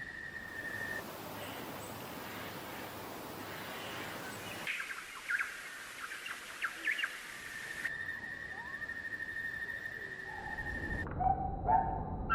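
Outdoor nature recordings that change abruptly several times: a steady high tone, then a cluster of short sharp bird chirps, then the high tone again, and rising calls near the end.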